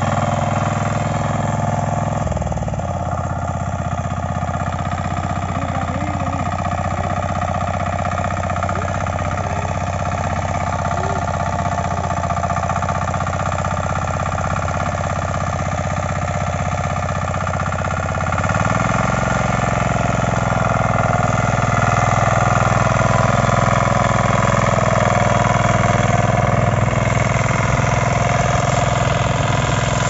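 KisanKraft 9 HP diesel power weeder's single-cylinder engine running steadily while its plough attachment turns the soil. The running gets louder about two-thirds of the way through.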